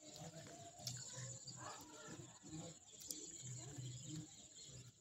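Faint chewing and crunching of dry fuller's earth (multani mitti) close to a small microphone: soft repeated chewing pulses with a couple of sharp crunches.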